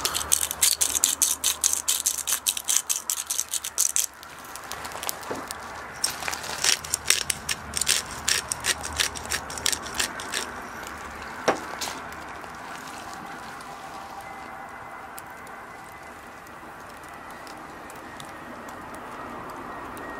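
Bone-in chops cooking on a wire grate over charcoal, with dense crackling and popping for about the first eleven seconds and a short lull about four seconds in. After that it settles into a quieter, steady sizzle.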